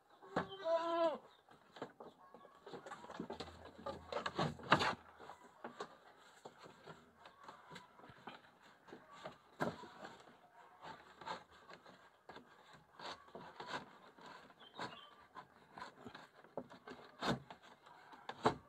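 A goat bleats once near the start, then scattered light knocks and taps follow.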